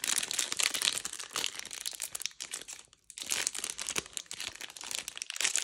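Foil wrapper of a Magic: The Gathering booster pack crinkling as hands work it and pull it open at the seam, with a brief lull about three seconds in.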